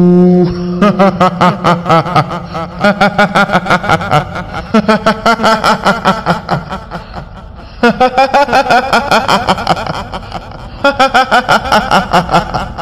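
High-pitched cackling 'hihihi' laughter of a kuntilanak, the Indonesian female ghost, in three long runs of rapid pulses, with short breaks about a third and three quarters of the way through.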